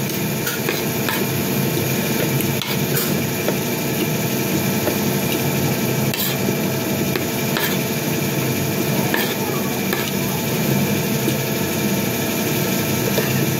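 Spoon and fork clinking and scraping against a ceramic plate of rice, a few sharp clinks scattered through, over a steady mechanical hum.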